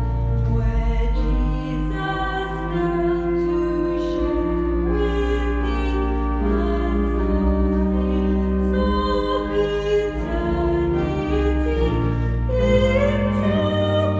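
Choral singing in a church service, with long held low notes sustained underneath the voices.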